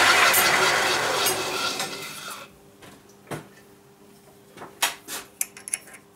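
Metal lathe with a four-jaw chuck winding down after being switched off, its running noise fading away over about two seconds. Then a few light metallic clicks and clinks as a small part is handled at the turned rod.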